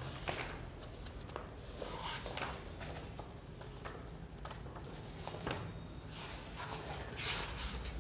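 Paper being handled at a desk: soft rustling with scattered small clicks and taps, and a longer rustle near the end like a page being turned, over a steady low room hum.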